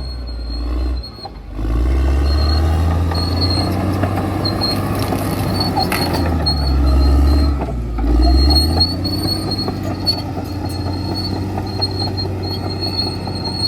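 Caterpillar D6R XL bulldozer working: its diesel engine runs under load while the steel tracks squeal, a high thin squeal coming and going. The engine note drops briefly about a second in and again near eight seconds, as the load changes.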